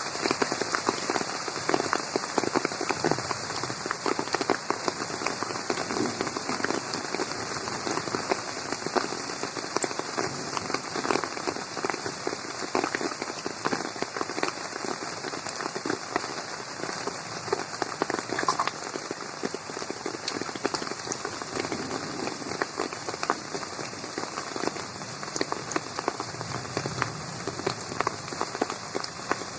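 Steady rain falling on a garden pond, a dense patter of drops hitting the water and surrounding surfaces.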